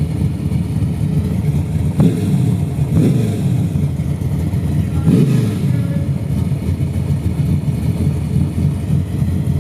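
Chevrolet Monte Carlo SS drag car's engine running at a loud, choppy idle, with short throttle blips about two, three and five seconds in.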